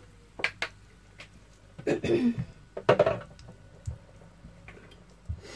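A person clearing their throat and coughing, two short loud bursts about two and three seconds in, after a couple of light clicks.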